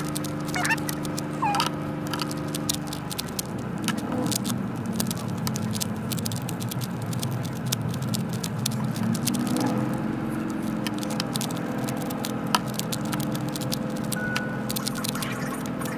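A Rubik's cube being turned rapidly in a speedsolve: a dense stream of quick plastic clicks and clacks, over a steady background hum.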